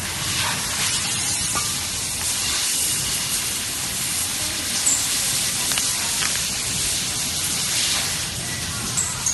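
Steady hissing noise with a few faint crackles, starting suddenly at the beginning.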